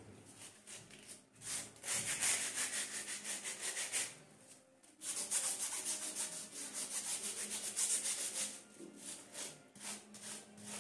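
Small stiff-bristled hand brush scrubbing a plastic comb with rapid back-and-forth strokes, several a second. The scrubbing comes in two spells of about three seconds each, with a short break between.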